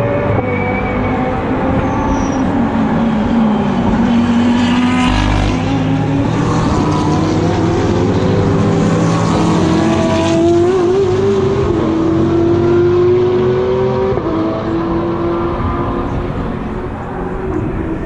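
British GT racing cars' engines at race pace, several engine notes overlapping. The main note drops, then climbs and holds high.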